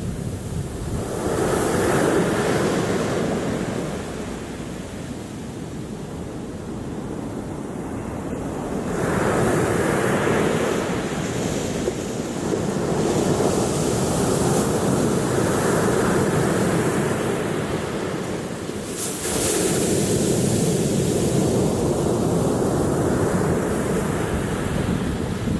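Sea waves breaking and washing up a pebble beach, the surf swelling and easing in about four surges.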